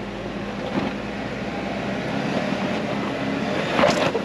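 Four-door Jeep Wrangler's engine running at low revs as it crawls up to a rock ledge, slowly getting louder. A short, louder sound comes near the end.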